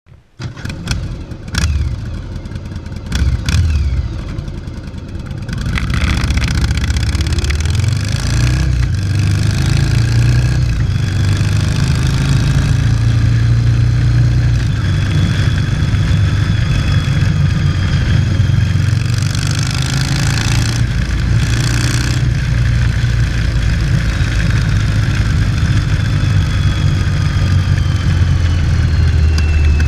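Yamaha XV750 Virago's air-cooled V-twin running through a debaffled, unmuffled exhaust. It starts unevenly with a few sharp knocks in the first seconds, settles into a steady loud run after about six seconds, and is revved up and down a couple of times.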